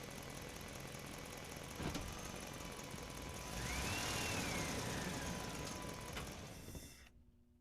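An engine running steadily, with a sharp click about two seconds in and a whistle that rises and then slowly falls in the middle. The sound cuts off suddenly about seven seconds in.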